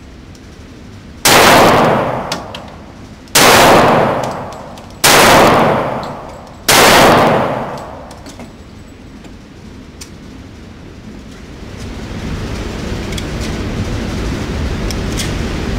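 Four shots from a Glock 23 .40 S&W pistol, fired slowly one at a time, about a second and a half to two seconds apart. Each shot has a long echoing tail. Near the end a steady rushing noise rises.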